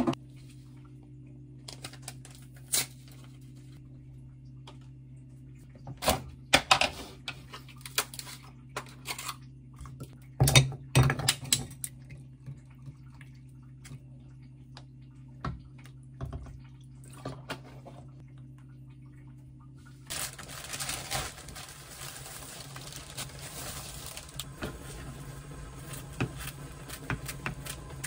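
Ice clinking and knocking against a glass and a plastic ice-ball tray, in a few scattered clicks and knocks. About twenty seconds in, this gives way to kitchen scissors snipping through dry sheets of laver (gim), a dense crackle of small crisp ticks. A steady low hum runs underneath.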